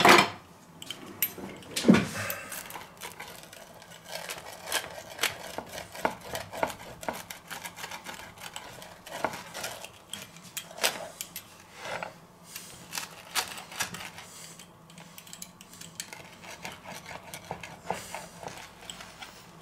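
A metal clatter of utensils in a kitchen drawer at the start, with a loud knock about two seconds in. Then a steel pizza cutter wheel rolls through a baked pizza and scrapes on a wooden cutting board, making a run of short crunches and clicks.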